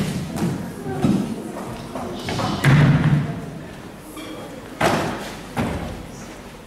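Several dull thumps and knocks in a large hall, the loudest about two and a half seconds in.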